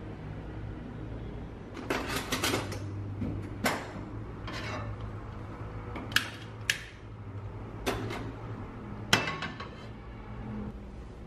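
Kitchenware clattering as it is handled, then two sharp clicks from a long-nosed gas lighter at a stove burner about six seconds in. Near the end come two knocks, each ringing briefly, as a frying pan is set on the stove's metal grate, over a low steady hum.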